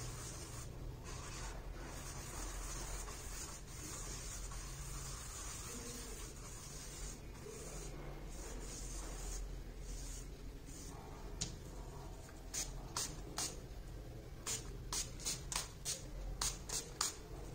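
Stencil brush scrubbing acrylic paint over a textured MDF clock base, a steady soft rubbing over a low hum. In the last few seconds it gives way to about a dozen short, sharp bursts.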